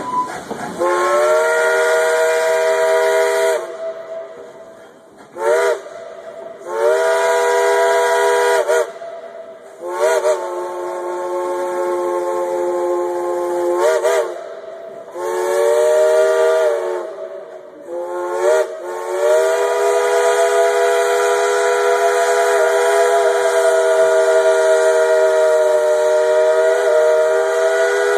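Steam locomotive's chime whistle blown in a long series of blasts, several notes sounding together, with the pitch sliding in and out at the start and end of blasts. Some blasts are short, most are held a few seconds, and the last is held about nine seconds. A rush of steam hiss runs under the whistle.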